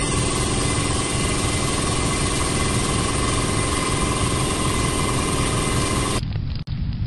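A steady mechanical noise like an engine running, a dense rumble and hiss with a fixed hum, which cuts off about six seconds in.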